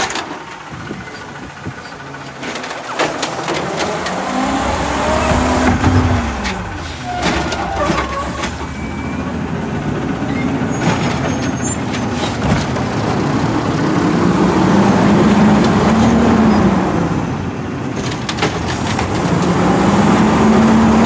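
Natural-gas automated side-loader garbage truck working at the curb: the engine revs up and falls back in several long swells as it drives the hydraulics, with knocks and clatter from the arm and carts.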